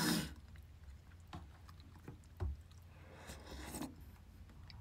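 Quiet eating sounds from a person eating stew with a spoon. A short breathy huff comes at the very start, a single dull knock about halfway through, and a soft airy slurp from the spoon near the end.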